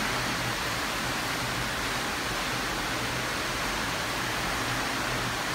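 Heavy tropical rainstorm: a steady hiss of downpour, with a faint low hum underneath.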